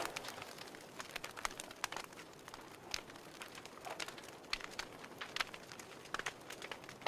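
Wood fire crackling: irregular sharp snaps and pops over a low steady hiss.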